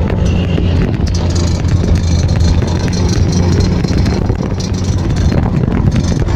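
Vespa scooter engines running steadily at cruising speed, heard from a moving scooter, with wind noise on the microphone.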